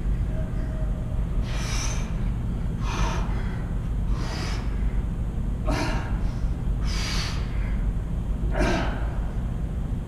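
A man breathing out hard with effort while doing hanging leg raises: about six sharp breaths, roughly one every second and a half, over a steady low hum.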